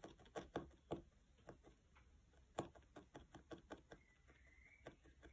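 Felting needle stabbing wool fibres through felt into a foam pad: soft, quick taps at an uneven pace of a few a second, with short pauses between runs.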